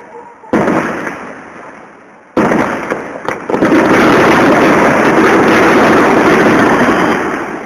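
Aerial fireworks shells bursting: two sharp bangs that ring away, about half a second and two and a half seconds in, then a loud continuous barrage of about three and a half seconds that fades near the end.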